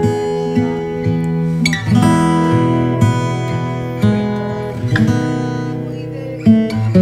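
Background music: guitar strumming chords that change about once a second.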